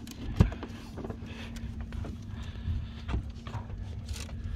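Knocks and thumps on a fishing boat while a just-measured peacock bass is handled for release: one sharp, loud thump about half a second in, then scattered light knocks and clicks over a steady low hum.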